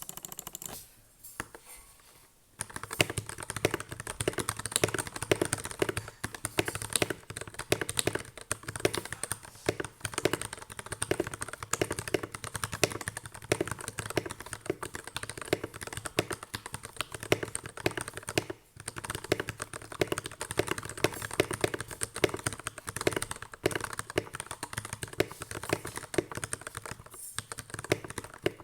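Steady fast typing on a GK61x mechanical keyboard with lubed Gateron Milky Yellow linear switches: a quick run of key clacks that starts about two and a half seconds in, with brief pauses twice later on.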